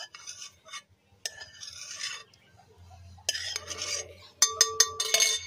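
Metal kitchen utensil scraping against cookware in several strokes while working soft boiled breadfruit, with a quick run of sharp clinks near the end.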